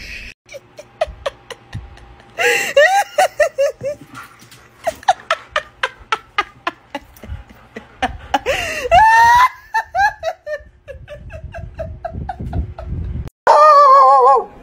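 A person laughing hard in quick repeated bursts. Near the end a dog lets out a loud, drawn-out pitched cry.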